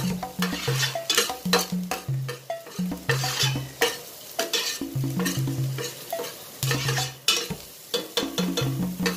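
A metal spoon scraping and clinking against a stainless steel frying pan, stirring chopped onion and garlic that are frying in a little oil with a light sizzle. The strokes come in quick irregular runs, with a brief lull about two seconds in and another near the end.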